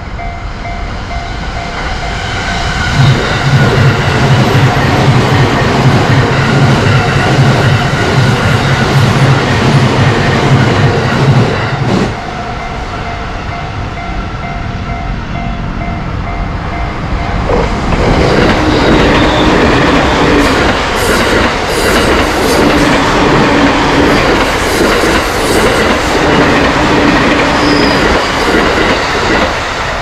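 Train running past a level crossing in two loud spells. A low hum from about three seconds cuts off suddenly near twelve seconds, and noisier rail noise follows from about eighteen seconds until near the end. Steady warning tones from the crossing signal sound at the start.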